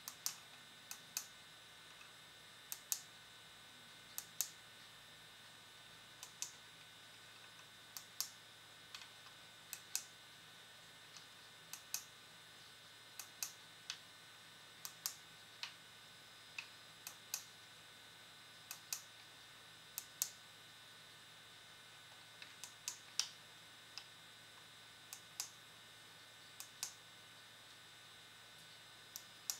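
Push buttons on a MegaBee eye-gaze writing tablet being pressed: sharp plastic clicks at irregular intervals, often two in quick succession, as letters are entered one at a time on its display.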